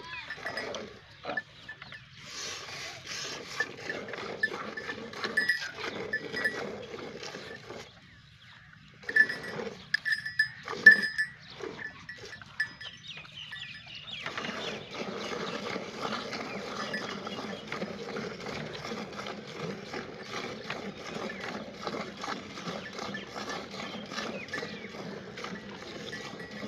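Hand-milking into an aluminium bucket. In the first half there are a few scattered sounds, short gaps and some sharp knocks. From about halfway, milk squirts into the pail in a quick, continuous rhythm.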